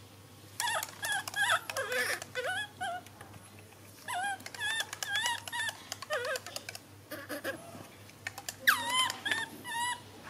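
Infant macaque giving repeated high, squeaky calls that swoop up and down in pitch, in three bouts with short clicks among them: begging for its milk bottle.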